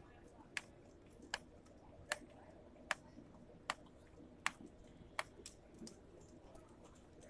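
A series of sharp, evenly spaced clicks, about four every three seconds, over faint background noise.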